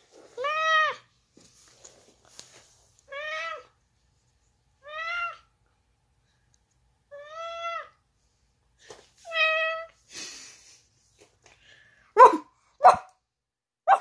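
A person's voice imitating a cat: five drawn-out meows, each about half a second long and rising then falling in pitch, spaced a couple of seconds apart, then short, sharp yelps near the end.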